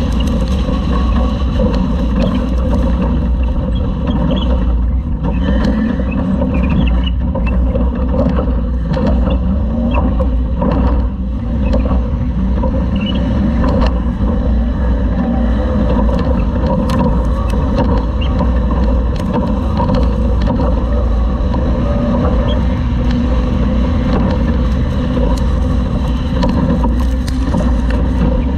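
Toyota off-road race truck's engine running steadily under load, heard from inside the truck with drive noise and scattered clicks and knocks from the chassis over rough ground.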